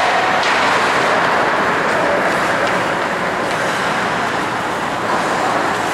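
Steady scraping hiss of ice-hockey skates on rink ice during play, with a few faint clicks of sticks and puck.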